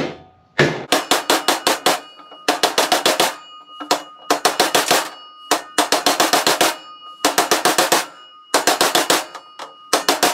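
Hammer tapping on a 36 mm socket to drive a new bushing into a 47RE/48RE transmission front pump: runs of quick, light metal-on-metal taps, about eight a second, with short pauses between runs and a ringing note after the strikes. The taps are kept small and even so as not to tear up the bushing.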